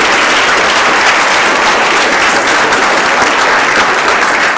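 Audience applauding: many people clapping at once, a dense, steady clatter.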